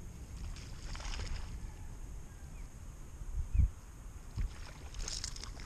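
Fishing kayak afloat on open water: a steady low rumble of wind on the microphone and water against the hull, with soft hissing swishes. A single dull knock comes about three and a half seconds in, and a smaller one a second later.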